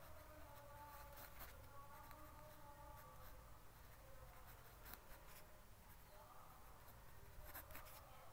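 Faint scratching and light tapping of a ballpoint pen writing on a paper map, in short separate strokes, over a faint wavering hum.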